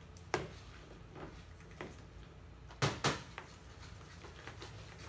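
A few light clinks and knocks of a fork and a measuring spoon against a ceramic mixing bowl as mashed potato is stirred and salt is tipped in, the clearest pair about three seconds in.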